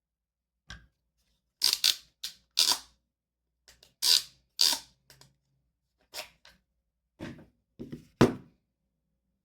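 Irregular short rustles and clacks of objects being handled, about a dozen in all, ending with the loudest one, a sharper knock.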